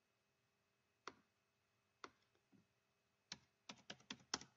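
Faint computer keyboard typing: a few single key clicks about a second apart, then a quick run of about six keystrokes near the end as a number is entered.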